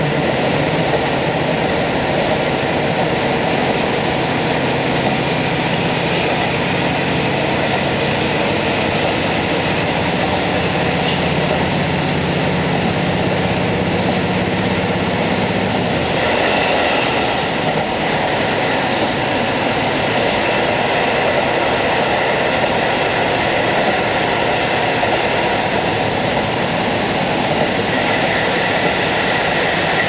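Inside a KiHa 40 diesel railcar running along the line: its N-DMF13HZI diesel engine drones steadily over the wheel and rail noise. About halfway through, the engine note drops away, leaving the car rolling on with wheel and rail noise.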